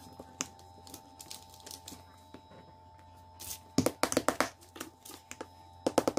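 Rapid scratchy crackling from grit and debris being scrubbed off a floor tile before a peel-and-stick tile is laid. It comes in two short spells, about four seconds in and again near the end.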